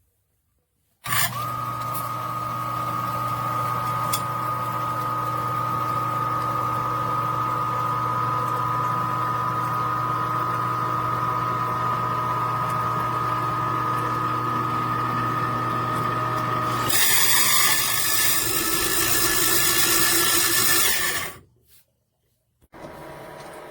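Little Giant VCMA-20ULS condensate pump running: its small 1/30 HP motor gives a steady hum with a high whine, starting about a second in. Near the end it switches to a louder rushing noise for about four seconds, then cuts off suddenly. The owner thinks the pump should be pumping a lot faster than this.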